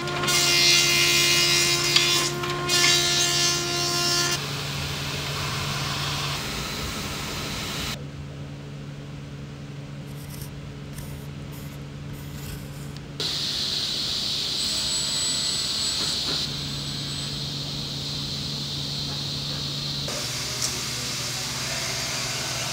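Kuwahara thickness planer running with a wooden board fed through it, loudest over the first four seconds or so. After that, quieter steady workshop machinery hum.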